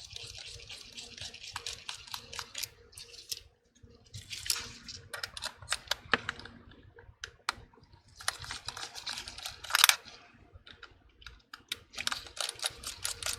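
A small pentalobe screwdriver working the two bottom screws out of an iPhone 12: irregular light clicks and short scratchy scrapes of the metal bit in the screw heads, with a louder scrape about ten seconds in.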